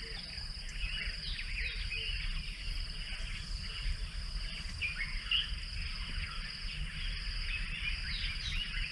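Savanna bush ambience: a continuous high insect trill with scattered short bird chirps, over a steady low rumble.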